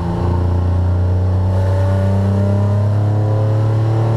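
1981 Porsche 911 SC's air-cooled 3.0-litre flat-six pulling under acceleration, heard inside the cabin; after a short break right at the start, its pitch climbs steadily as the revs build.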